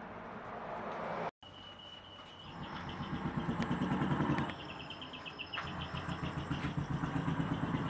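An engine running with a low, pulsing rumble that swells about three seconds in and stays strong, with a thin steady high tone above it. The sound cuts out briefly a little over a second in.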